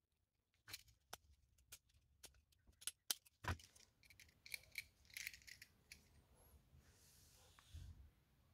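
Faint clicks and light metallic clinks of split-ring pliers, split rings and single hooks being handled while hooks are fitted to a resin lure; the clicking stops about two-thirds of the way through.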